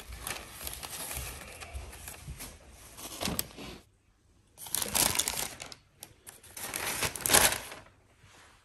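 Crinkling, rustling handling noise full of small clicks, in two stretches with a short quiet break about four seconds in.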